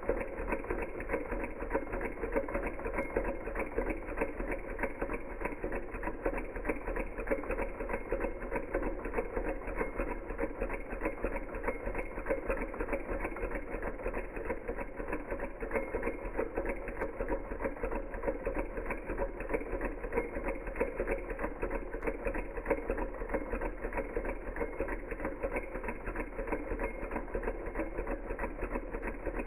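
Small Hog Motor desktop Stirling engine running steadily: a rapid, even mechanical clatter that does not change.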